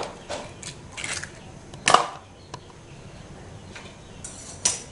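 A few separate sharp clicks and knocks of eggshell and hands against a mixing bowl, the loudest about two seconds in and another near the end.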